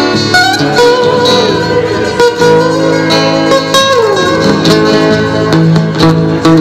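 Archtop guitar being played: picked notes and chords ringing over one another, with notes sliding down in pitch about four seconds in and again at the end.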